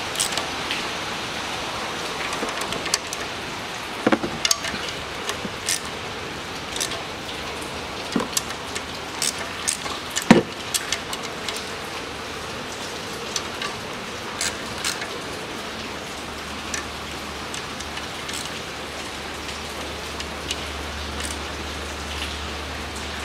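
Torque wrench with a socket extension tightening the bolts of a CVT oil pan to 9 N·m: scattered short metallic clicks and taps over a steady hiss, with one louder knock about ten seconds in.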